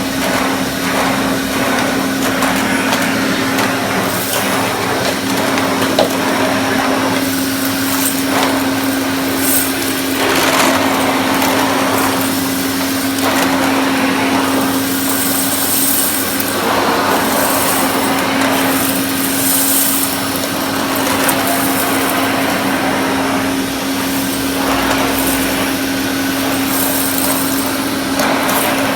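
Hoover Constellation 843 canister vacuum cleaner, converted to a UK motor, running with a steady motor hum, while the rush of air through the nozzle rises and falls every couple of seconds as it is pushed back and forth over the floor.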